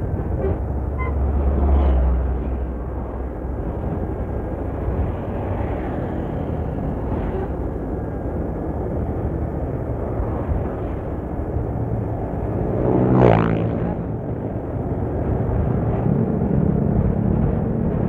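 Road traffic and engine noise heard from a vehicle following a bus, a steady rumble. About thirteen seconds in, a short, sharply rising whine is the loudest moment, and a steadier engine note comes in near the end.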